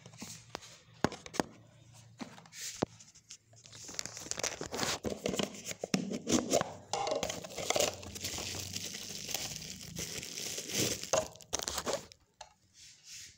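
Plastic packaging being handled and opened by hand: a few sharp clicks at first, then several seconds of dense crinkling and rustling that dies away about a second before the end.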